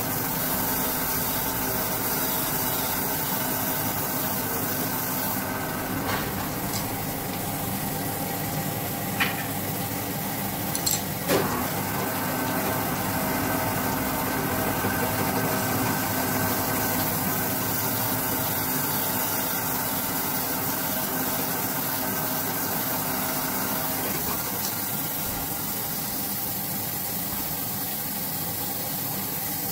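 Crankshaft grinding machine running, its grinding wheel turning against a Swift crankshaft journal under a flowing stream of coolant: a steady machine hum with the wash of liquid over it. A few sharp clicks come about a third of the way in.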